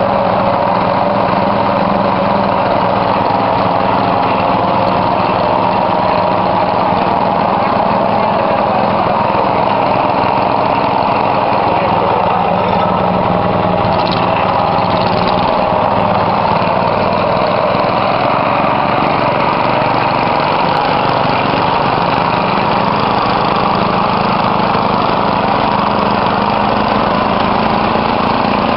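Small engine of a simple portable well-drilling rig, running steadily without letting up.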